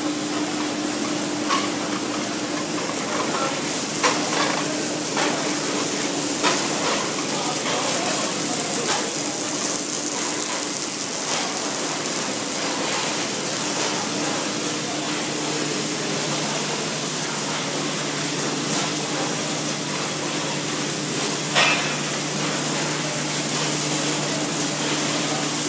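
Silicon steel slitting line running: a steady hiss of machinery with a constant hum, a second lower hum coming in about halfway through, and a few sharp clicks and knocks.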